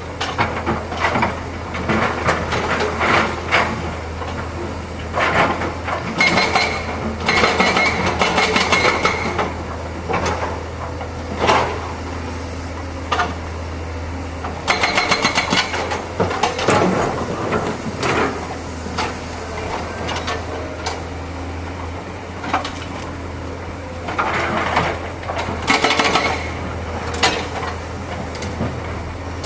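Excavator's diesel engine running steadily, with repeated metal clanks and knocks and a few short, high metallic squeals as the machine works.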